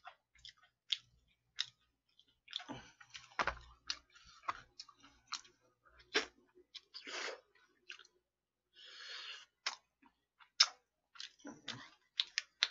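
A person eating fried chicken close to the microphone: chewing and biting, with many short clicks and crackly smacking noises scattered through.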